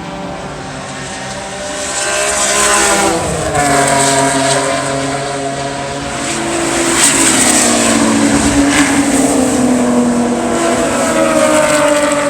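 Several race cars running at speed on a road circuit, their engines at different pitches at once. The sound grows louder about two seconds in, with one engine's pitch dropping sharply as a car goes by.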